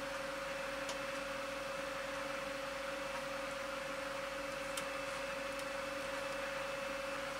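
Steady electrical hum over a light hiss, with two faint ticks, about a second in and near five seconds, of steel tweezers pressing a thin metal shielding plate onto a smartwatch's circuit board.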